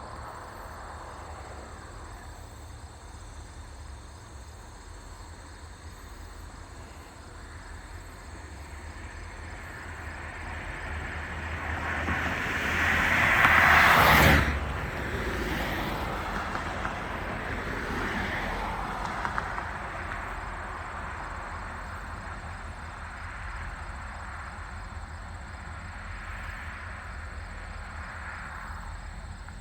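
GLC Railroad train rolling past: the sound builds to a peak about halfway through as the lead end goes by, then the rumble of the passing cars carries on and slowly fades.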